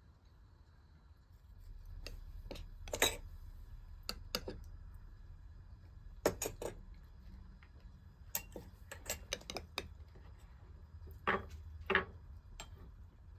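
Metal spoon clinking and tapping against a glass dessert bowl, with light knocks of tableware on a wooden table: scattered sharp clicks, several in quick succession about eight to ten seconds in.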